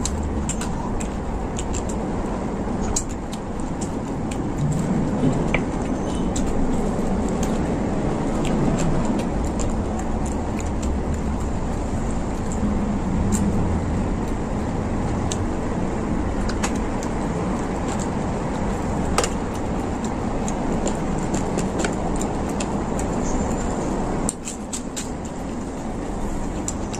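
Scattered small clicks and smacks of someone eating fried fish by hand and chewing, over a steady low rumble that dips briefly near the end.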